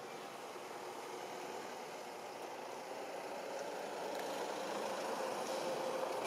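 An engine running steadily with a low hum, growing gradually louder toward the end.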